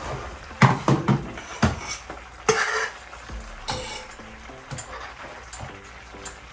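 A spoon or ladle clinking and knocking against a pot and bowls, a handful of sharp strikes in the first four seconds, over quiet background music.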